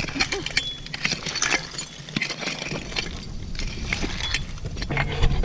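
A hand digging tool scraping through dirt and knocking against buried glass bottles, with scattered clinks and small knocks throughout and a couple of brief glassy pings.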